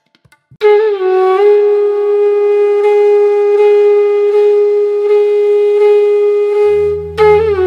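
Background music: a wind instrument comes in about half a second in and holds one long note, bending slightly near the start. Near the end a low drone enters and the instrument moves into a phrase of gliding notes.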